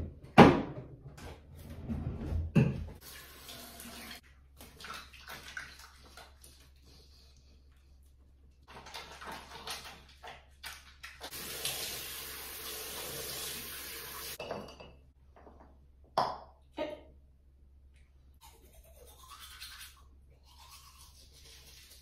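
Bathroom sink sounds: a vanity drawer knocks open at the start, then teeth-brushing scrubbing, a tap running for about three seconds near the middle, and two sharp knocks a little after.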